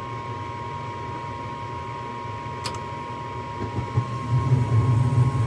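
Lennox gas furnace running on a call for heat, its newly replaced inducer fan motor humming steadily with a high whine, which sounds good. There is a single sharp click, and about four seconds in a lower rumble grows louder.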